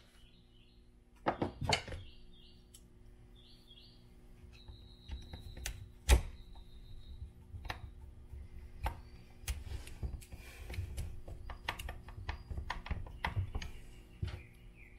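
Scattered small clicks and taps of screws and a hex driver against the plastic bumper and chassis of an RC truck as the bumper screws are put in, with one sharper click about six seconds in. Birds chirp faintly in the background.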